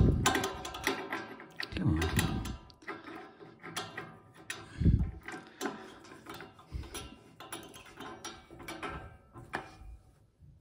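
Chrome radiator valve being turned and handled by hand after its spindle was resealed with new O-rings: a run of small metallic clicks and ticks, with a few dull thumps from handling.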